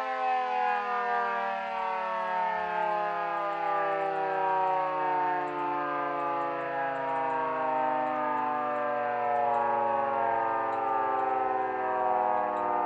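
Homemade miniature 3T22 rotating siren sounding a continuous multi-note tone that falls slowly and steadily in pitch as its rotor winds down.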